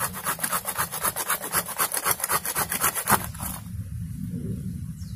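Hand pruning saw sawing down through soil and the roots under a mulberry bonsai, cutting the taproot, in fast even strokes of about six or seven a second that stop about three and a half seconds in.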